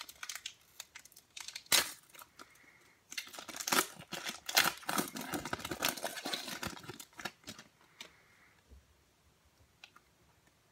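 A foil NBA Hoops trading-card pack being torn open and crinkled by hand as the cards are pulled out. The sharp crackling is densest in the middle and dies away over the last couple of seconds.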